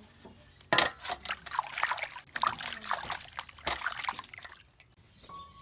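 Water splashing and sloshing in a metal basin as a head of cabbage is washed by hand, starting with a sudden loud hit about a second in. The splashing dies away near the end.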